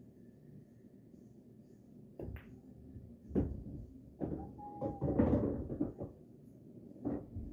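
A pool shot on a Valley bar table: a light cue-tip click about two seconds in, then hard knocks of balls colliding and a ball dropping into a pocket. A longer rumble about five seconds in is the pocketed ball rolling through the table's ball return, and another knock comes near the end.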